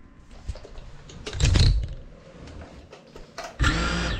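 GEPRC CineLog 35 cinewhoop's brushless motors and ducted props whining up in two short throttle bursts, about a second and a half in and again near the end, each with a low rumble on the on-board camera's microphone.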